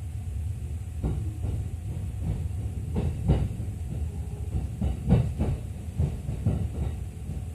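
Running noise inside the lower deck of a JR East E231-series double-decker Green Car: a steady low rumble with a series of irregular knocks from the wheels on the track, loudest about three and five seconds in.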